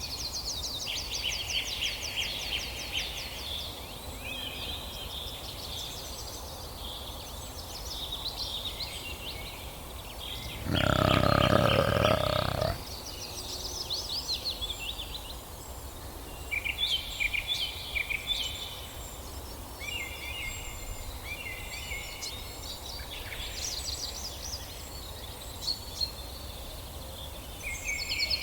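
Several birds singing with repeated high trills and chirps all through. About eleven seconds in, a loud, deeper animal call lasts about two seconds.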